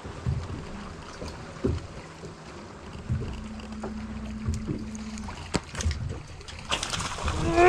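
Sounds of a fishing boat on the water: low knocks against the hull, a steady low hum for about two seconds in the middle, and a few sharp clicks as the rod is swept back on a hookset. A man's voice rises loudly right at the end.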